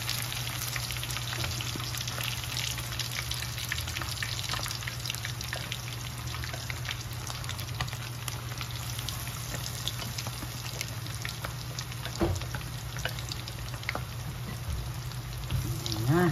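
Chicken pieces deep-frying in hot oil: a steady sizzle with many small crackling pops as the pieces are turned with wooden chopsticks, over a low steady hum. A single knock about twelve seconds in.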